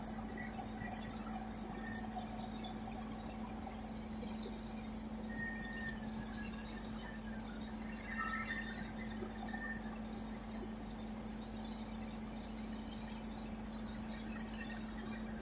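Steady, high-pitched insect chorus of chirping crickets, with a steady low hum underneath and a few faint brief chirps in the middle.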